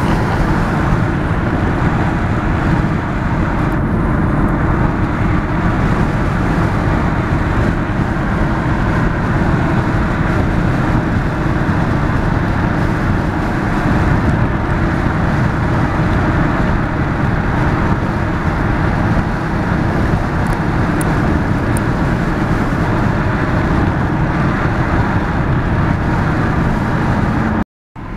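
Steady road and engine rumble inside a moving car's cabin, breaking off for a moment near the end.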